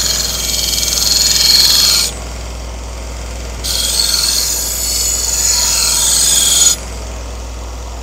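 2x42 belt grinder running with a steady motor hum, and a knife edge drawn across the moving belt twice, each pass a hissing grind of two to three seconds. These are deburring passes to strip the burr from the edge.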